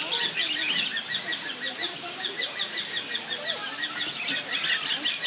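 A flock of farm birds calling: a steady, rapid chatter of short high chirps with lower honking calls mixed in.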